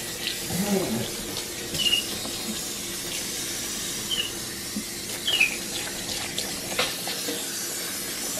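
Tap water running and splashing into a stainless steel kitchen sink as a capuchin monkey is washed by hand under the stream. A few short high squeaks come through at about 2 and 5 seconds in.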